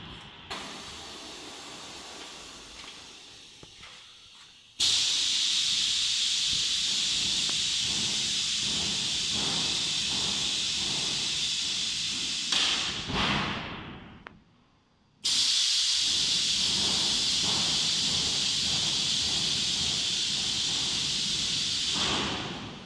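Two long, loud hisses of air from an automatic industrial vacuum forming machine. Each starts suddenly and runs for about seven seconds, with a short drop-off between them.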